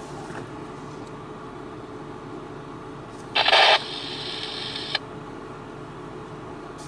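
Steady low rumble of a car heard from inside the cabin. About three seconds in comes a brief loud noisy burst, then a fainter hiss that cuts off with a click about five seconds in.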